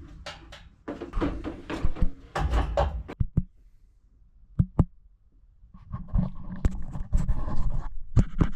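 Knocks, thunks and scraping as household items are handled and shifted about, in two busy stretches with a few sharp knocks between them.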